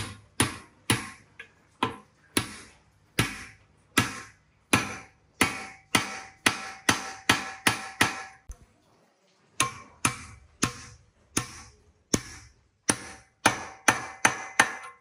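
Hammer blows on a steel pipe driver, seating a bearing onto the shaft of an electric water-pump motor's rotor held in a vise. About two sharp metallic knocks a second, each with a brief ring, with a short pause about nine seconds in.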